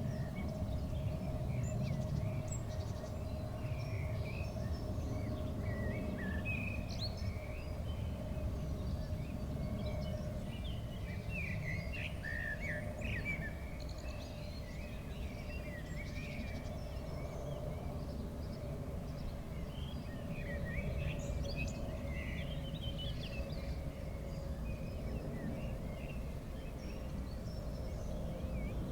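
Small birds chirping and twittering in short scattered calls over a steady low rumble, with a faint steady hum underneath that sinks very slightly in pitch.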